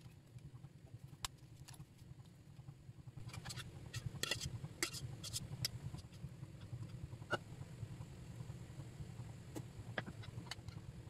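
Kitchen handling sounds as uncooked, stiff lasagna sheets are laid in a glass baking dish and spread with béchamel: scattered light clicks and taps, busiest a few seconds in, over a faint low steady hum.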